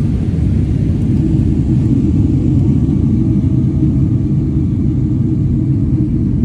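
Airbus A350 cabin noise heard from a window seat: a loud, steady low rumble of the Rolls-Royce Trent XWB engines and the airflow over the fuselage in flight.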